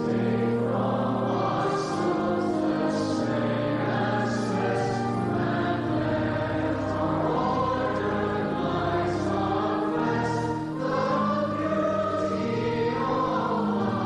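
Church choir singing with the church's Compton pipe organ accompanying, low notes held under the voices.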